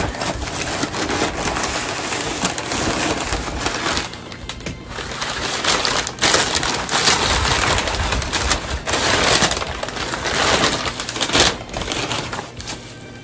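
Crumpled kraft packing paper rustling and crinkling as it is pulled out of a shipping box, in uneven spells of crackling, with bubble wrap handled near the end.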